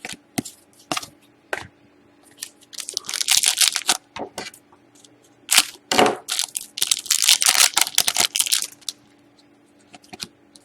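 Hockey trading cards and their packaging being handled: a few light taps, then two stretches of rustling and scraping as cards and wrapper slide against each other, the second one longer.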